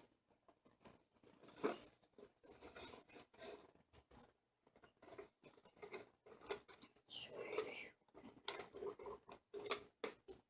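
Faint, irregular scratching, clicking and rustling of a cardboard CPU retail box and its packaging being opened and handled.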